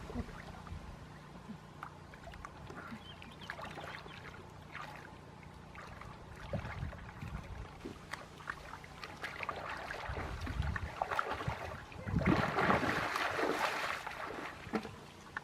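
Water sloshing and splashing in short, irregular bursts, with a louder stretch of splashing about twelve seconds in.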